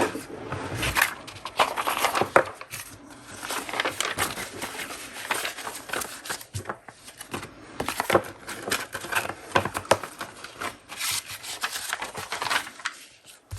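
Sheets of paper rustling and sliding against each other as they are handled and arranged, with irregular light scrapes and taps.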